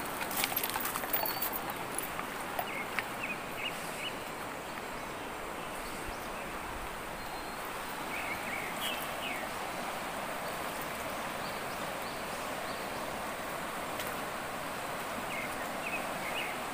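Steady rushing of a river's white-water rapids over rocks, with short bird chirps three times. A few crackles, likely footsteps on dry leaves, come in the first second or so.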